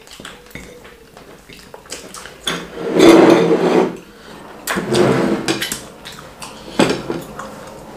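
Clinking and knocking of dishes and eating utensils at a meal table. There are three louder noisy stretches, about two and a half, five and seven seconds in.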